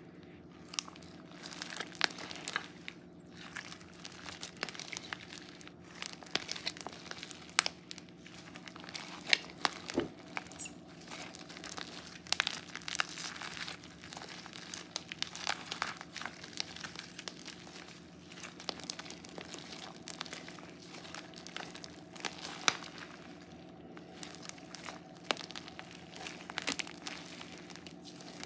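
Crunchy foam slime being kneaded and stretched by hand: clear slime packed with foam beads, giving dense, irregular crackles and pops as the beads crunch and the sticky slime pulls apart.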